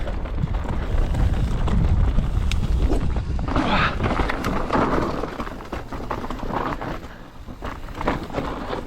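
Mountain bike descending a steep, rough downhill trail, heard through an action camera's microphone. Low wind rumble on the mic is heaviest in the first half. Tyre noise on dirt and rock swells about four seconds in, with scattered clicks and rattles from the bike.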